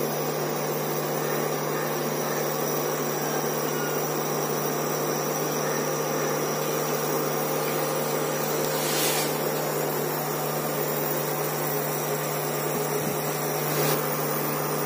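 Steady whirring hum of an induction cooktop's cooling fan and coil as oil heats in the pan, with a brief hiss about nine seconds in.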